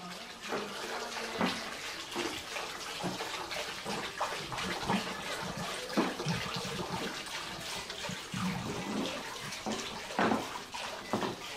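Water running and splashing steadily, with many small irregular splashes.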